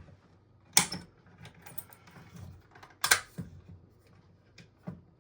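BG-12 manual fire alarm pull station worked by hand: two sharp snaps of its handle mechanism, a bit over two seconds apart, with lighter clicks and rattling between them and a few small clicks near the end.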